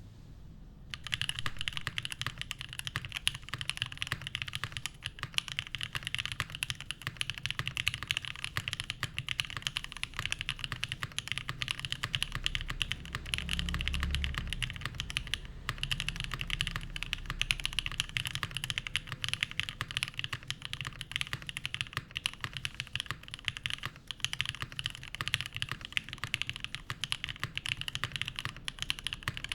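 Continuous typing on a TGR x Monokei Jane v2 ME custom mechanical keyboard, top-mounted with an aluminium plate, lubed Gateron Cream Soda linear switches and GMK keycaps. The keystrokes start about a second in and run on as a dense stream of clicks.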